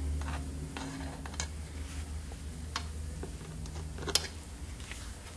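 Scattered light clicks of a small metal oil applicator touching the engine's crankcase and bearings as the transmission bearings are oiled with 30 weight motor oil. The sharpest click comes about four seconds in, over a low steady hum.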